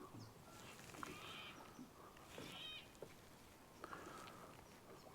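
Near silence, with a few faint animal calls and the odd faint tick.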